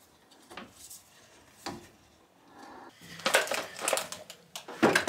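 Tools and 3D-printed plastic parts handled on a wooden workbench: scattered knocks and clicks, then a denser run of clinks, rattling and scraping from about three seconds in.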